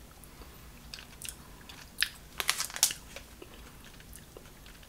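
Close-up chewing of a sour peach gummy candy: scattered wet mouth clicks and smacks, bunched together about two to three seconds in.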